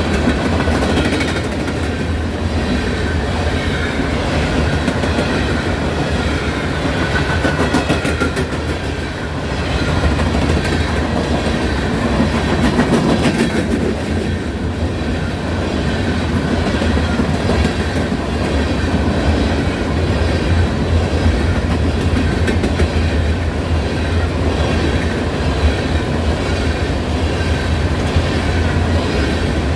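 Norfolk Southern coal train rolling past: a steady rumble of the cars, with the clickety-clack of wheels over rail joints.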